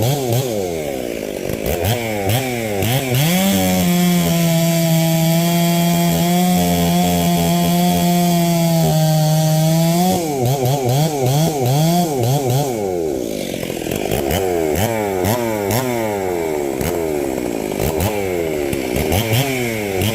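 Ported Stihl 038 Magnum two-stroke chainsaw running, its engine pitch wavering rapidly up and down. From about three and a half seconds in it holds a steady high pitch at full throttle for about six seconds, then drops back to the wavering pitch.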